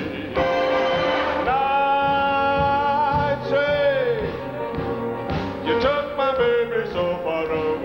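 A man singing long, wordless held notes over a country-style band: one long note in the first half, then a note that slides down.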